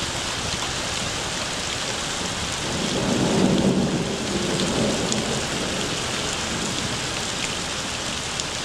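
Steady heavy rain falling, with a low rumble of thunder that swells about three seconds in and dies away by about five seconds.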